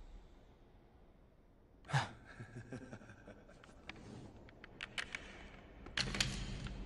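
Sound effects of a fall down an ice crevasse. A sharp knock against ice about two seconds in is followed by a scatter of small clicks and knocks as pieces of a broken wooden staff tumble down. A heavier impact with a low rumble comes about six seconds in.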